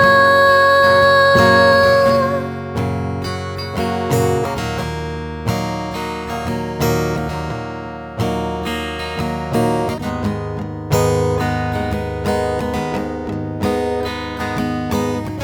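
Solo acoustic guitar playing a slow instrumental passage, chords struck about once a second, each ringing and dying away. A held sung note fades out about two seconds in.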